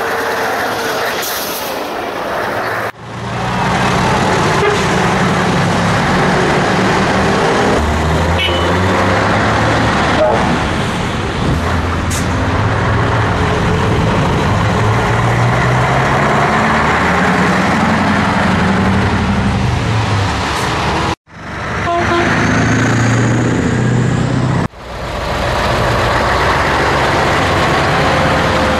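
Classic Scania V8 diesel trucks driving past one after another, their 14-litre V8 engines pulling and revving, the pitch rising and falling as they go through the gears.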